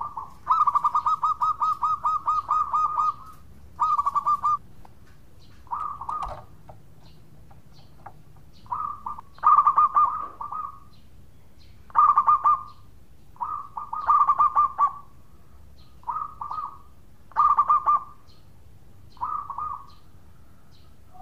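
Zebra dove (perkutut) cooing in phrases of fast, pulsing trilled notes. The first phrase lasts nearly three seconds, then a string of shorter bursts follows, a second or two apart.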